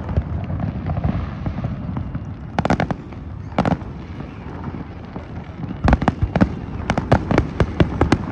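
Fireworks display bursting: a few sharp bangs about three seconds in, then a quick run of bangs from about six seconds on, over a steady background hubbub.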